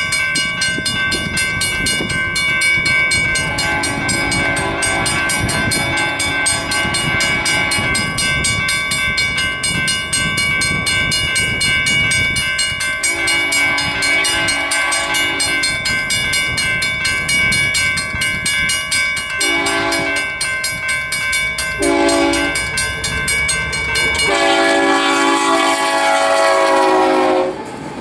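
A Union Pacific diesel locomotive's air horn sounds the grade-crossing signal: two long blasts, two short ones and a final long blast, with the pitch sagging at the end of the last one as the locomotive reaches the crossing. Under it, the electronic crossing-signal bell rings steadily.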